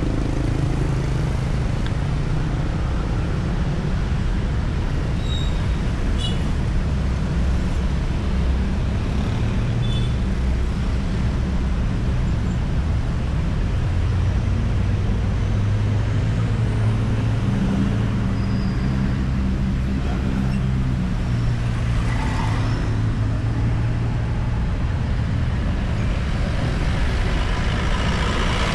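Road traffic passing steadily: the low drone of engines, heavy vehicles among them, over tyre noise, with no single vehicle standing out.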